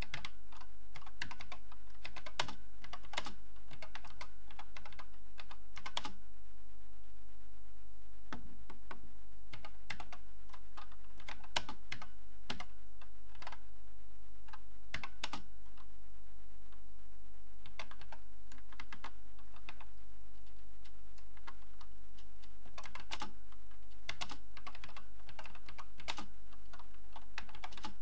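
Keys of an Acorn Electron keyboard being typed in irregular runs, with a couple of short pauses, over a steady low hum.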